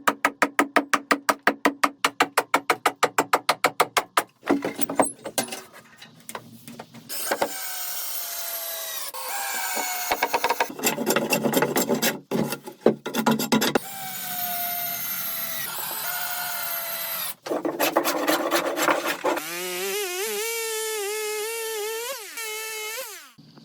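Wood being worked with tools: a fast, even run of sharp knocks, then several stretches of a tool cutting or grinding into wood, its whine falling in pitch and, near the end, wavering.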